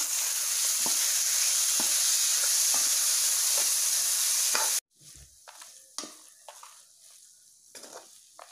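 Grated raw mango sizzling in hot oil and tempering spices in a kadai, stirred with a metal spatula that scrapes the pan about once a second. About five seconds in, the loud sizzle cuts off suddenly, leaving quieter scattered scrapes of the spatula against the pan.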